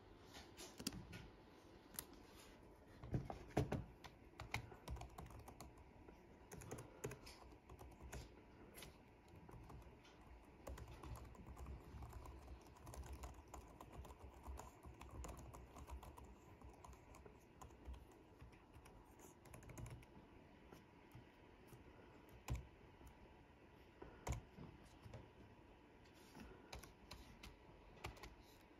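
Typing on a Lenovo ThinkPad X240 laptop's freshly installed backlit replacement keyboard: faint, irregular runs of key clicks.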